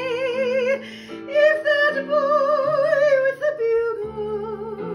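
A woman singing a show tune in long held notes with wide vibrato, over steady accompaniment chords. The first note ends under a second in, and new sung phrases begin at about one second and at three and a half seconds.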